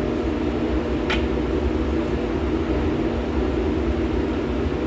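Steady drone of running shop machinery, a constant hum with a low rumble, and a single light click about a second in.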